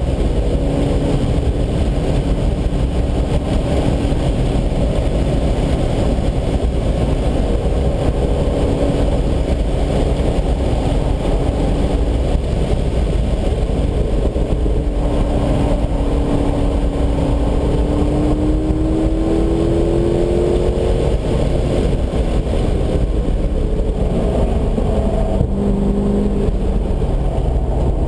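Chevrolet Corvette V8 heard from inside the cabin under hard driving on a race track, over dense road and wind rumble. The engine note holds fairly steady at first, climbs through a long pull in the second half, then falls with downshifts near the end as the car slows for a corner.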